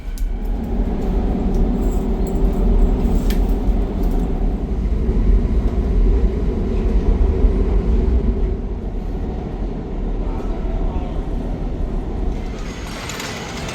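Steady rumble of a roller coaster train running along its track.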